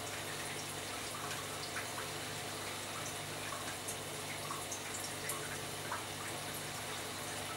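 Aquarium water bubbling and trickling as the air-stone bubble columns break at the surface, with many small scattered drip-like pops, over a low steady hum.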